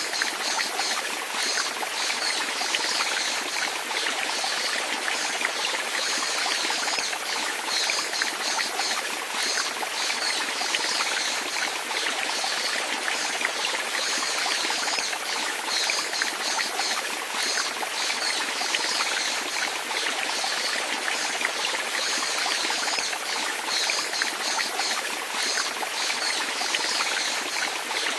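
Running water of a small stream, trickling steadily and unchanging, with a bright hiss of fine splashing.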